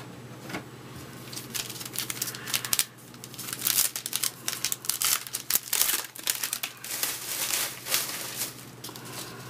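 Wrapper of a 2011 Topps Update baseball card pack crinkling and tearing as it is opened by hand, a long run of sharp crackles.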